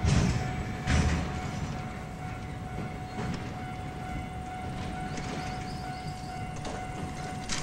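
Freight train of covered wagons rolling slowly while shunting: a low rumble of wheels on rail, with two heavy clunks about a second apart near the start. A thin steady tone runs underneath.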